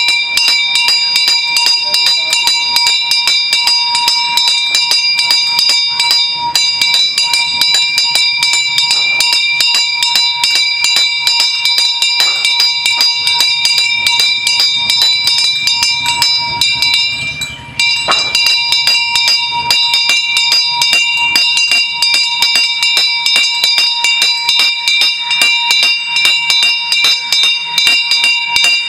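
A metal bell rung rapidly and without pause, its clapper striking many times a second so the ringing tones never die away, with a brief break about two-thirds of the way through.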